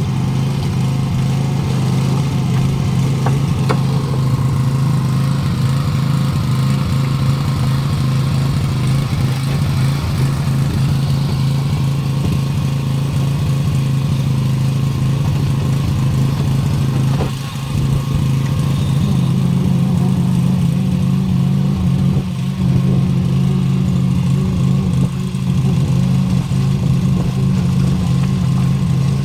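An engine running steadily, a loud low hum with a short dip in level a little past halfway.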